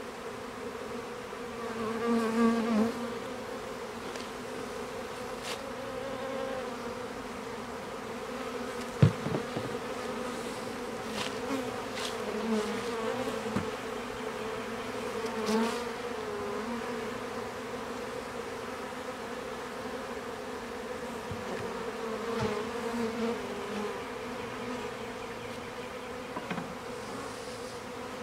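Many honeybees buzzing around the open hives in a steady hum, swelling now and then as bees fly close past. A single sharp knock comes about nine seconds in.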